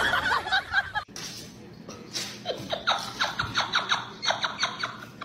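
A person laughing in a fast run of short, high-pitched bursts, about four or five a second, through the second half.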